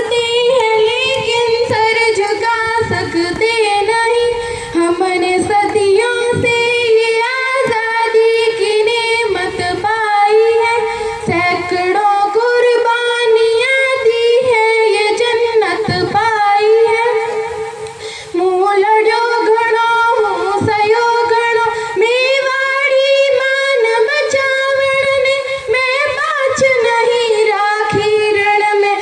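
A young girl singing solo in long, ornamented melodic lines, with a short breath about eighteen seconds in.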